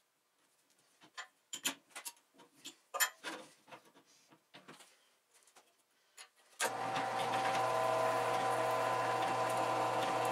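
Light clicks and knocks of a small steel part and drill jig being handled and clamped in a drill press vise, then, about two-thirds of the way in, the drill press motor switches on and runs with a steady hum.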